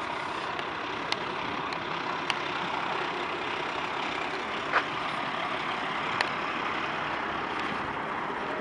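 Peterbilt dump truck's diesel engine running steadily, heard at a distance, with four short sharp clicks over it.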